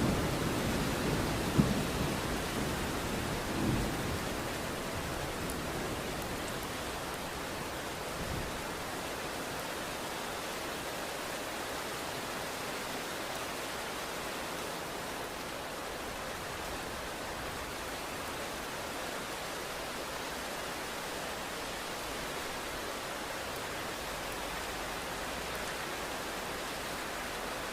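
Steady rain, with a roll of thunder dying away over the first few seconds and one sharp clap about a second and a half in.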